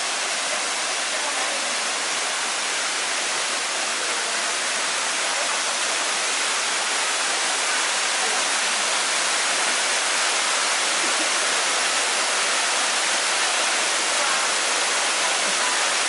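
Waterfall falling through a hole in a rock overhang into a pool: a steady rush of falling water, growing slightly louder.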